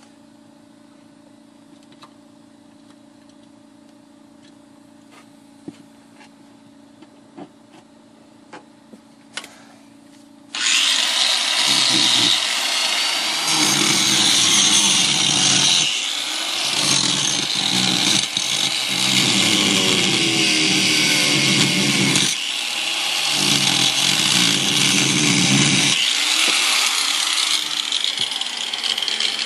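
A quiet low hum with a few light clicks, then, about ten seconds in, a small cutoff grinder starts suddenly and cuts into the minivan's sheet-metal floor to lengthen the seat-bolt holes. The grinding is loud and hissing, its lower part swelling and easing every second or two as the wheel bites and lifts.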